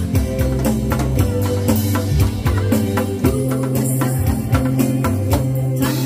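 Loud amplified music in an instrumental stretch: a busy drum-kit beat of bass drum and snare over a steady bass line.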